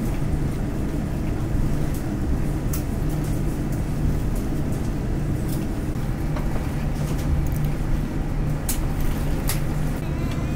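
Steady low rumble of airliner cabin noise inside a Boeing 787-10, with a few faint clicks and rattles.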